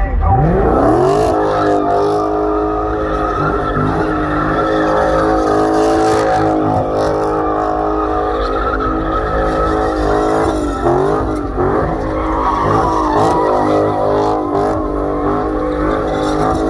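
A car doing a burnout: the engine revs up sharply in the first second and is held at high revs with tyres squealing. The revs dip and climb again about eleven seconds in and once more near the end.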